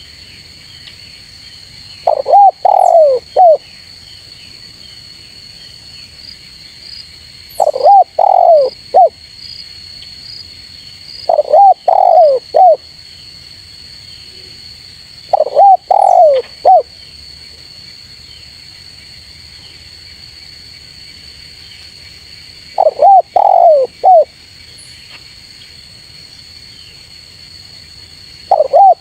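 Spotted dove cooing: five phrases of several quick coo notes, each about a second and a half long and several seconds apart, with another phrase starting at the very end. A steady high insect drone runs underneath.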